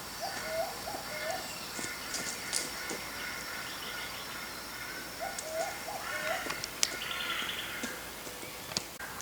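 Wild birds calling in bushland. A low call of three short rising notes comes twice, about five seconds apart, over higher chirping from other birds.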